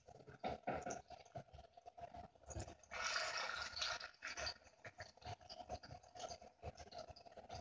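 Apple slices frying in bubbling sugar syrup in a pan, with small crackles and pops throughout. A fork working the slices makes about a second of louder scraping and sizzling near the middle.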